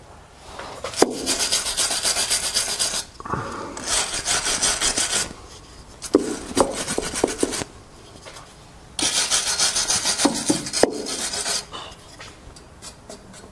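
Hand wire brush scrubbing the rusty steel exhaust pipe at its joint with the catalytic converter, cleaning it before sealing paste goes on. Four spells of fast back-and-forth strokes, each one to three seconds long, with short pauses between.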